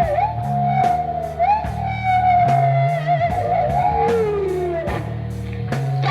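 Rock music: an electric guitar solo of long held notes that bend and waver, over bass guitar and a steady drum beat.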